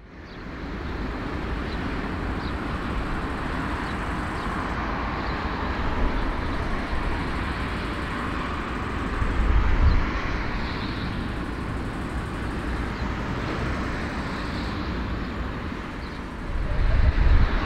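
Airport jet noise from an Airbus A340-300's four CFM56 engines at taxi: a steady roar that fades in at the start, with low rumbles about ten seconds in and near the end.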